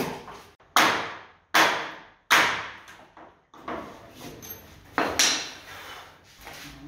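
Hammer blows on a door frame as it is knocked out of the wall: four heavy strikes about three-quarters of a second apart, each ringing out briefly, then a few lighter knocks and two more hard strikes about five seconds in.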